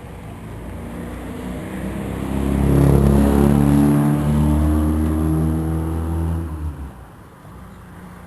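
Motor vehicle's engine passing close by, getting louder to a peak about three seconds in and fading away after about seven seconds.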